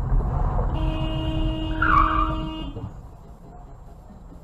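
A car horn held steadily for about two seconds over the engine and road rumble heard from inside a moving car, with a short shrill squeal near the end of the horn, the loudest moment. The rumble fades after about three seconds.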